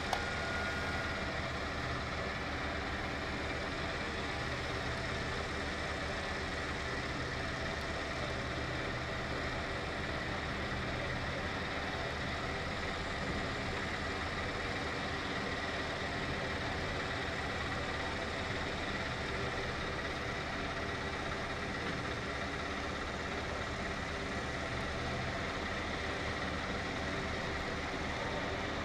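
Steady, unchanging mechanical drone like an idling engine.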